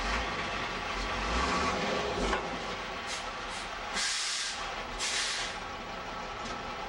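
Truck engine running under the raised dump bed, with several short bursts of hissing air, two longer ones about four and five seconds in.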